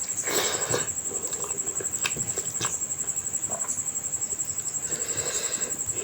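Crickets chirring steadily in a fast, even, high-pitched trill. Over it come eating noises: a short burst of mouth and chewing sound about half a second in, a few sharp clicks around two seconds in, and more chewing near the end.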